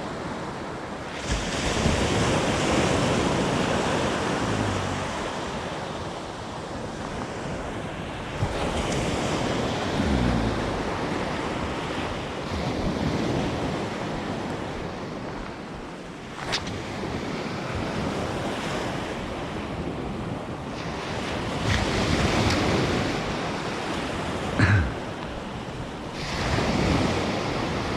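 Waves breaking on a sandy surf beach, swelling and falling back every few seconds, with wind buffeting the microphone. Two short sharp clicks or knocks cut through, one about midway and a louder one near the end.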